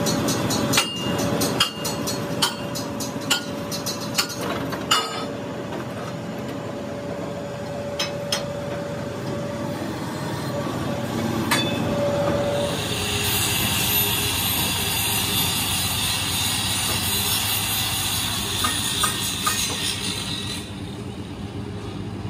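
Drill press running as it bores holes in the steel centre disc of a rickshaw wheel rim: a steady motor hum with scattered sharp metal ticks and knocks. About thirteen seconds in the hum gives way to a steady high hiss of metal finishing work on the rim, which stops shortly before the end.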